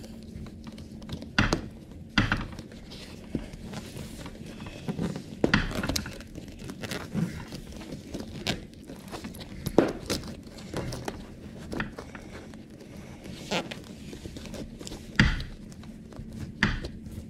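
Hands working an airbag wiring connector through the fabric cover of a 2019 Ford Interceptor driver's seat: irregular knocks, thunks and rustling of fabric and plastic, with a few sharper clicks.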